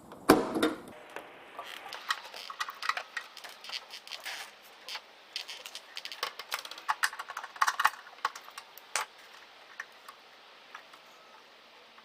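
Clicks, taps and rattles of metal parts being handled and worked loose while a microwave oven is dismantled, opening with a sharp knock; the clicking thins out near the end.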